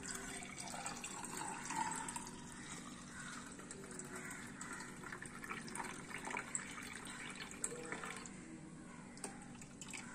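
Fresh lime juice poured in a stream from a steel vessel into a glass, splashing steadily as the glass fills, with a few small clicks.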